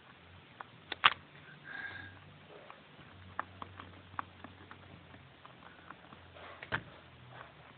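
Rabbit gnawing on a TV coaxial cable: faint, irregular small clicks and crunches from its teeth on the cable, with two sharper clicks, one about a second in and one near the end.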